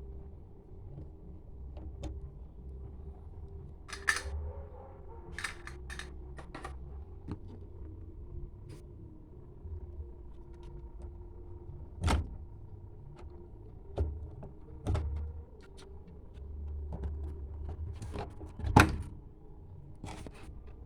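Scattered clicks and knocks from hands working on a washing machine's water inlet valve and its parts, about a dozen of them, the loudest near the end. A low steady hum runs underneath.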